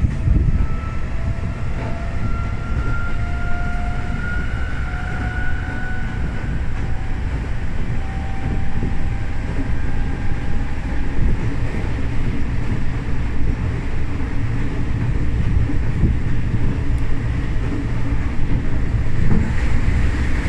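Tokyo Metro 05 series train running, heard inside the car: a steady low rumble from the running gear, with a faint electric motor whine rising slowly in pitch over the first ten seconds or so and then fading out.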